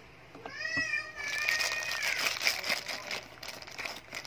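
A cat meowing, one drawn-out meow starting about half a second in, while a thin plastic bag crinkles as it is pulled off a small toy.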